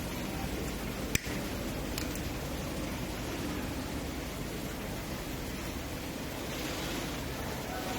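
Steady hiss of background noise, with one sharp click about a second in and a fainter tick shortly after.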